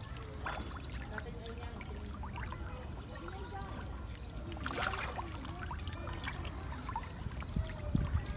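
Water splashing and trickling as a dense school of fish churns at the surface. There is a sharper splash about five seconds in and a few low thumps near the end.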